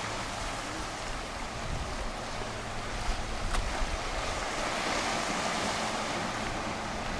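Ocean surf washing over shoreline rocks below a cliff: a steady rushing that swells louder about five seconds in as a wave breaks. Low wind rumble runs beneath it, and there is one brief click about three and a half seconds in.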